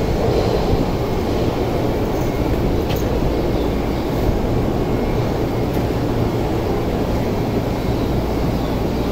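Steady hum and low rumble of an electric commuter train standing at an underground station platform with its doors open, mixed with the station's own background noise.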